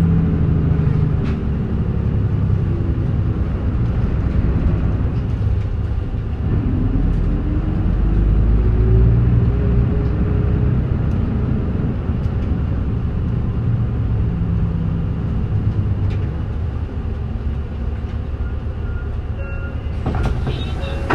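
Mitsubishi Fuso Aero Midi (KK-MK27HM) diesel city bus running, heard from inside the cabin: a steady low engine drone and road rumble. The engine note climbs as the bus accelerates about six to ten seconds in, then eases off. A few clicks come near the end.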